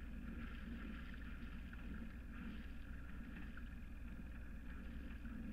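Hanse 355 sailing yacht's inboard diesel engine running steadily while the boat motors along with its sails down, heard as a constant low hum.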